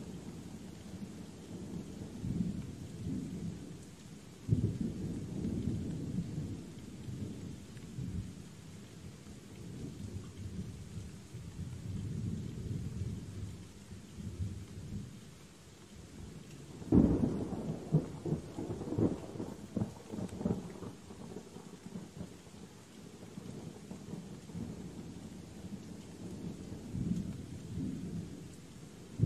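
Steady rain with thunder rumbling low and swelling in waves. A sudden louder peal comes about four seconds in, and the loudest, sharpest thunderclap comes about seventeen seconds in, rolling on for several seconds before it fades back into the rumble.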